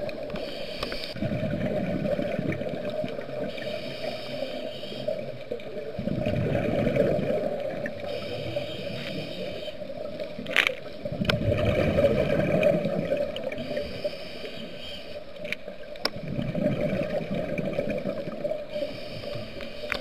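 Scuba diver breathing through a regulator underwater: a hissing inhale, then a rumbling rush of exhaust bubbles, repeating about every five seconds over a steady hum. A few sharp clicks fall in the second half.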